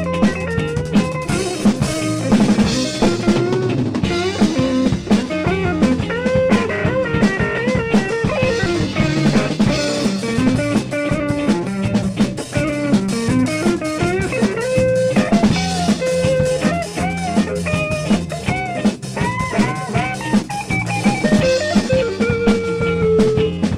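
Background music: an electric guitar melody with sliding, bent notes over a steady rock drum beat.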